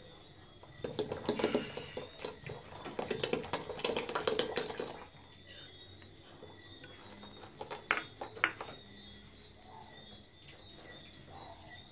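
Thick liquid glugging and splashing from two opened drink cans into a steel pot of frothy blended Irish moss, for about four seconds. Then a few sharp clicks and taps as the nearly empty cans are tipped and shaken out over the pot.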